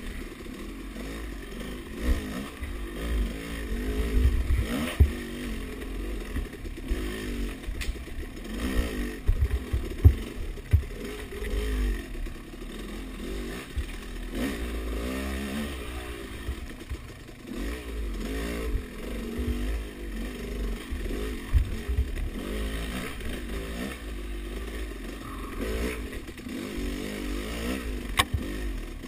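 Dirt bike engine revving up and down as it is ridden along a rough, tight trail, with sharp knocks and clatter from the bike over the ground and low wind rumble on the microphone.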